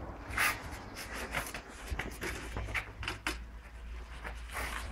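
Footsteps and shoes scuffing on a gravelly dirt yard while a go-kart is pushed along by hand with its engine off. Irregular short scrapes and knocks, the loudest about half a second in, over a steady low hum.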